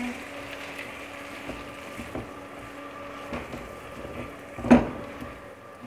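Spatula stirring thick, saucy chicken Manchurian in a non-stick wok over a steady hum, with a few soft clicks and one loud knock of the spatula against the pan about four and a half seconds in.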